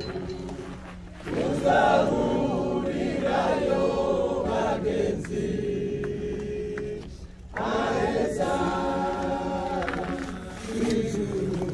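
A group of mourners singing together in long phrases with held notes, with a short break about seven seconds in before the next phrase starts.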